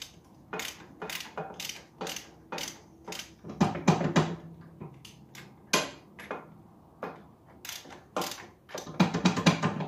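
Hand tools and metal mounting parts clinking and clicking while bolts are fitted on a tractor's fuel tank mounting. There are scattered knocks, with two runs of rapid clicking: one about three and a half seconds in, and one near the end.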